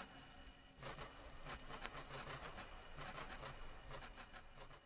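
Faint, irregular scratching and light clicks, a mouse's claws scrabbling over the floor and walls of a maze.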